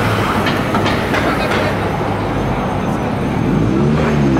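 City street traffic: a car drives past, and near the end a car engine rises in pitch and falls again as it revs.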